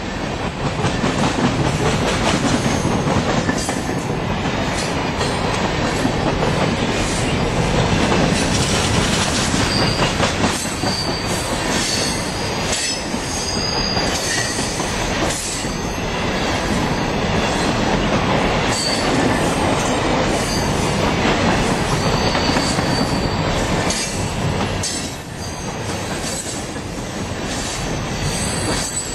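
CSX freight train's open-top cars rolling past, the wheels rumbling and clacking over the rails. Short high wheel squeals cut in now and then from about a third of the way in.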